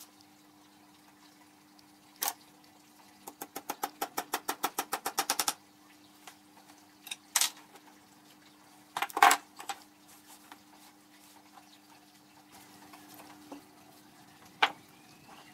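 Metal-on-metal clicks and knocks from hand tools and parts on a mini lathe's bed and headstock over a faint steady hum. Among them is a rapid, even run of about ten clicks a second lasting about two seconds, then a few separate knocks and one sharp click near the end.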